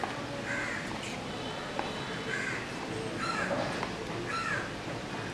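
A crow cawing, four short calls about a second apart.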